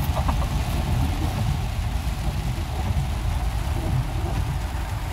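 Steady low rumble of a van driving through heavy rain on a flooded street, heard from inside the cabin, with an even hiss of rain and water over it.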